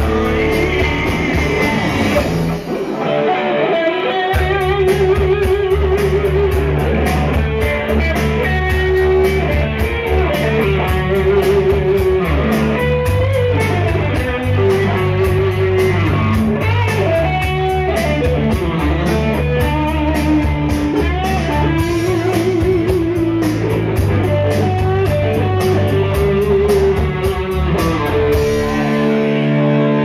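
Live rock band playing: electric guitars over a drum kit keeping a steady beat. The low end and drums drop out briefly near the start, then the full band comes back in.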